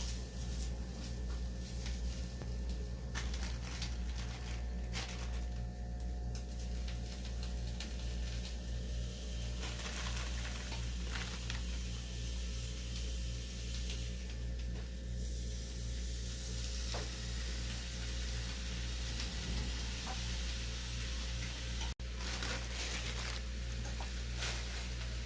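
Food frying and sizzling in a pan, the sizzle getting stronger about ten seconds in, with occasional small clicks of utensils over a steady low hum.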